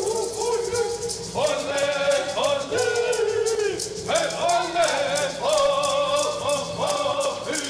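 Men of a Navajo Yé'ii Bicheii dance group singing together in high voices, with gourd rattles shaken in a steady beat.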